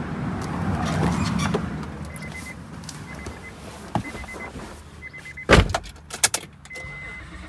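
A whir for the first second and a half, then a click, a loud door-shutting thud just past the middle followed by two sharp clicks, while the car's warning chime sounds in short high beeps at intervals.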